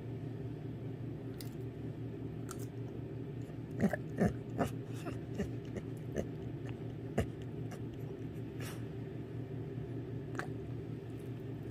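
A brown-and-white pit bull-type dog licking and smacking its lips a few times in the middle, over a steady low hum.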